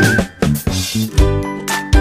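Background music with drums and a steady beat. It drops out briefly just after the start, then comes back in.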